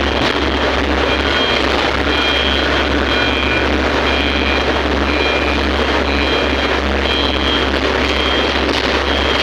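Excavator's diesel engine running with a steady heavy drone, with short high-pitched tones repeating on and off over it.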